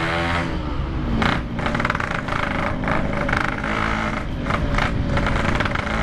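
Yamaha RX-King's single-cylinder two-stroke engine running hard under way through its modified stock-style exhaust. The revs dip about half a second in, then hold and climb slowly, with steady wind and road noise.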